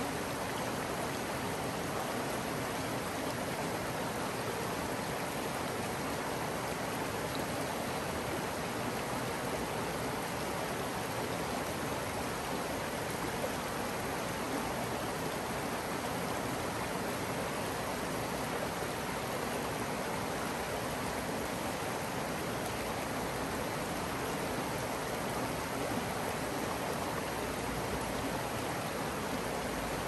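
Creek water running in a steady, even rush.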